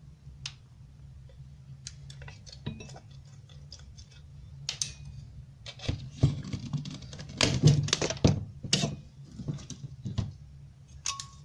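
Perforated sheet-metal cover being pried off a small metal coil housing with pliers: metal clicks, clinks and scraping, busiest and loudest from about six to nine seconds in, over a steady low hum.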